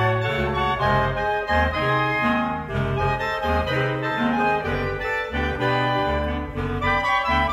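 Clarinet octet playing together: E-flat, B-flat, alto, bass and contrabass clarinets. Sustained chords sit over a low bass line that moves from note to note about twice a second.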